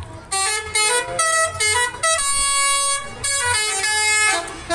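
Basuri 'telolet' multi-tone bus air horn playing a tune: a quick run of short notes at changing pitches, one long held note about two seconds in, then more short notes.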